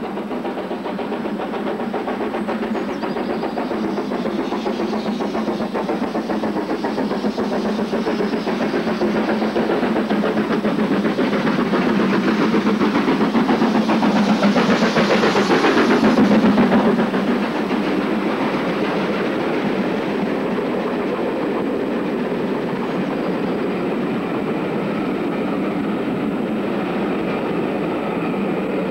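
BR Standard Class 4 tank steam locomotive and its coaches running through a station. The sound builds as the train approaches and is loudest as the engine passes, about sixteen seconds in, dropping in pitch. It then settles into the steady running noise of the coaches rolling by.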